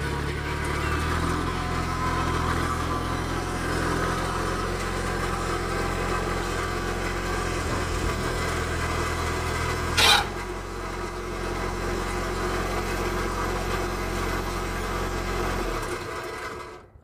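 Mahindra eMax compact diesel tractor's engine running steadily while its front loader lifts a stripped car body, with a single sharp bang about ten seconds in. The engine shuts off near the end.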